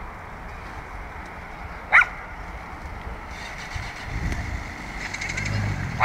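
A dog barks once sharply about two seconds in and again at the very end, over a steady outdoor hum; a low vehicle engine rumble builds in the second half.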